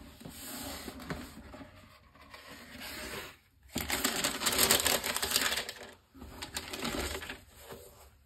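A cardboard shoebox is handled and opened, then tissue paper inside is crinkled and rustled loudly from about four seconds in for some three seconds before the handling grows quieter.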